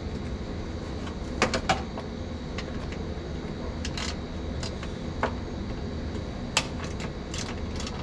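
Sharp metal clicks and clinks of hand tools and small bolts and washers being handled, about half a dozen at irregular intervals, the loudest a close pair about a second and a half in. A steady low background noise runs underneath.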